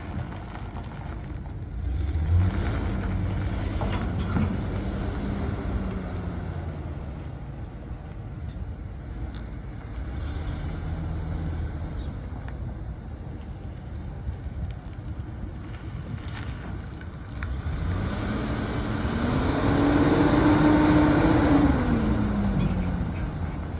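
Ford F-650 medium-duty truck engine as the truck drives. Its pitch rises as it pulls away about two seconds in and then holds. A second, louder rise begins near the end, peaks as the truck passes close by, and then falls away.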